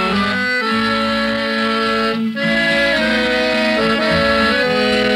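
Instrumental music: held chords over a bass line, with a short break about two seconds in.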